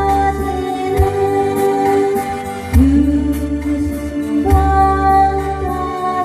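Backing music for a slow Korean ballad: long held chords over a sustained bass with a light steady beat, changing chord about every two seconds.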